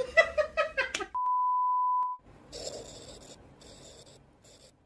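A steady single-pitch electronic beep lasting about a second cuts off the talking. After a brief gap, a faint scratchy pen-scribbling sound effect comes in short strokes as the handwritten logo draws in, fading near the end.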